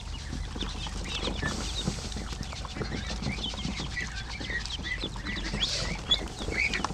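A brood of ducklings peeping continuously, many short high peeps overlapping one another.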